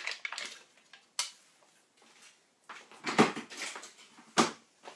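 Knocks and light clatter of ingredient packages and a tub being handled and set down on a kitchen countertop, the loudest knock about three seconds in and a second one just over a second later.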